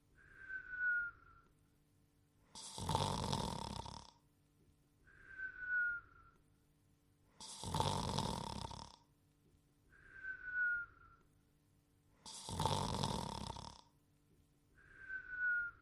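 Cartoon snore-and-whistle: a long, rasping snore on the breath in, then a short whistle falling slightly in pitch on the breath out, repeating about every five seconds.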